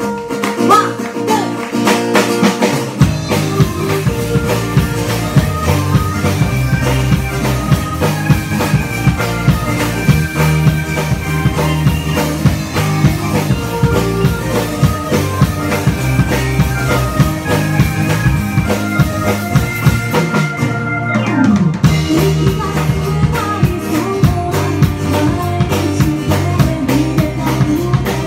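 Live pop band playing: strummed acoustic guitar, drum kit, bass and keytar, with a woman singing. The bass and drums come in fully about three seconds in, and the cymbals drop out briefly about three-quarters of the way through before the full band resumes.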